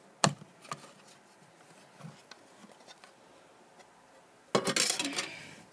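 Plastic trading-card holders being handled: a sharp plastic click shortly after the start, a few faint taps, then a burst of plastic rustling near the end as the cards are pulled from their plastic sleeve.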